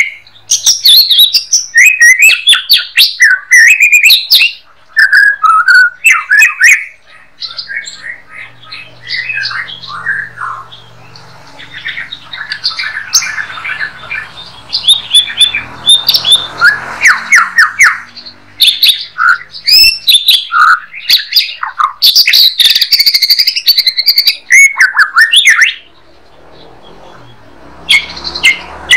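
White-rumped shama (murai batu) singing a long, varied song of loud whistles, sliding notes and fast chattering trills. It comes in bursts with short pauses and falls quiet for about two seconds near the end.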